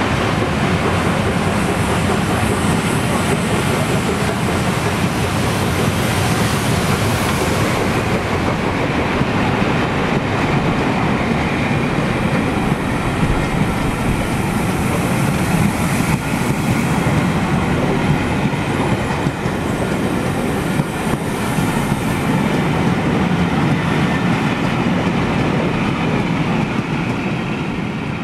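A rake of passenger coaches rolling past close by, a steady loud rumble of wheels running on the rails.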